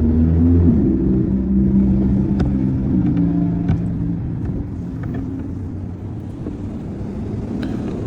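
A vehicle engine running with a low hum that weakens after about four seconds, with a few light clicks and taps over it.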